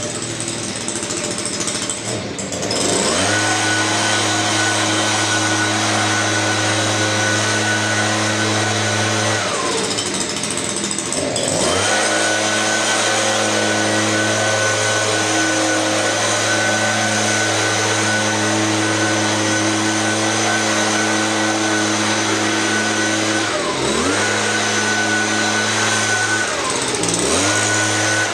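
Gas leaf blower engine buzzing at full throttle. It revs up about three seconds in, falls off for a couple of seconds around ten seconds, dips twice more near the end, and climbs back to full speed each time.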